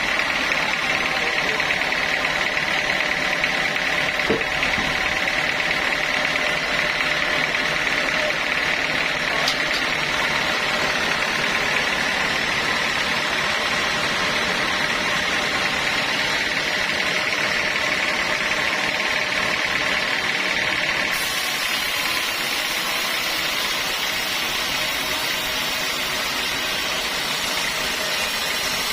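Sawmill saw machinery running steadily, with a steady high whine over the machine noise.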